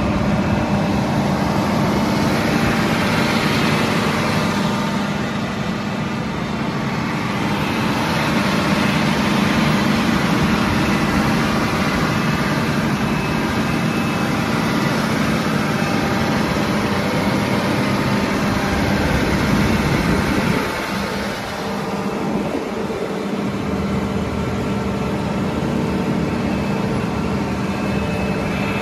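John Deere R4038 self-propelled sprayer's diesel engine running steadily as the machine drives and sprays, with an even hiss over it. The sound drops briefly about two-thirds of the way through, then carries on.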